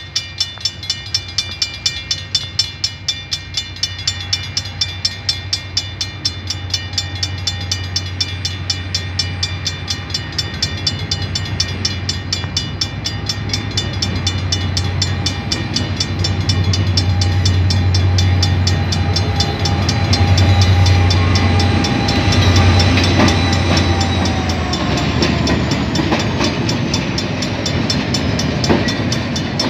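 Level-crossing bell ringing with rapid, regular dings while a diesel locomotive hauling a coal train approaches. The engine's drone grows louder, and its pitch drops as the locomotive goes by near the end.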